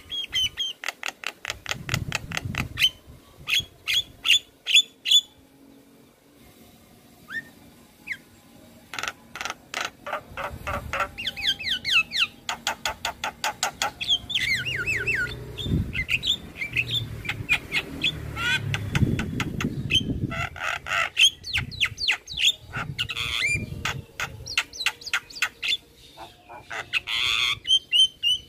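Javan myna (jalak kebo) singing a loud, fast chattering song: rapid runs of sharp clicking notes mixed with quick downward-sliding whistles, with a short lull partway through.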